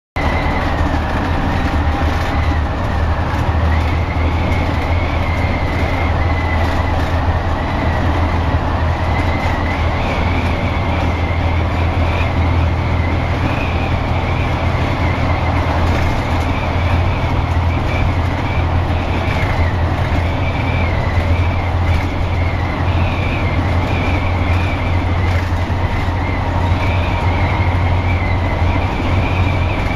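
Steady low drone of a highway coach's engine and road noise heard inside the moving bus, with a thin high whine wavering slightly in pitch above it.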